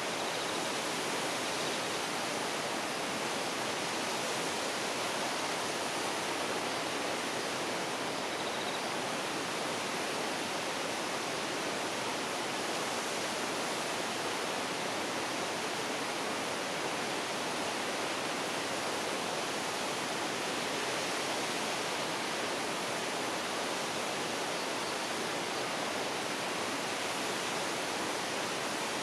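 Waterfall: a steady rush of falling water that does not change.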